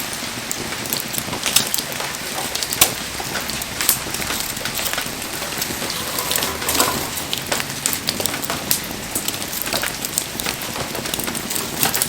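Wood bonfire crackling: a steady hiss with irregular sharp pops and snaps from the burning firewood.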